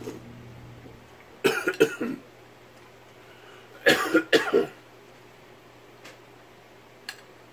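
A man coughing in two short fits of a few sharp coughs each, the second about two and a half seconds after the first: soup has gone down the wrong way.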